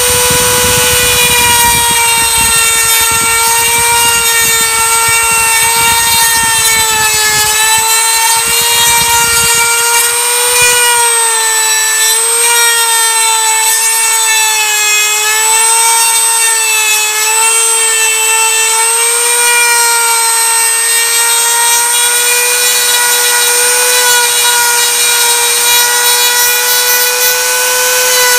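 High-speed handheld rotary tool with an abrasive cone bit grinding down the acrylic of a Bionator orthodontic appliance on the surfaces that face the lower teeth. A steady whine whose pitch dips and recovers a little as the bit bears on the acrylic, with a rougher grinding rasp under it for the first ten seconds or so.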